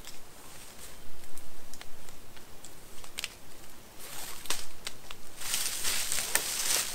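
Scattered small clicks and rustles of gear being handled at a tree, then from about five and a half seconds in a louder run of crackling and rustling footsteps on dry forest floor litter.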